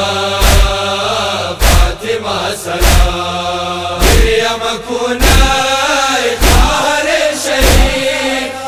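Male voices chanting a noha, a Muharram lament, in a slow melody, over a deep, even chest-beat (matam) thump about every 1.2 seconds, seven beats in all.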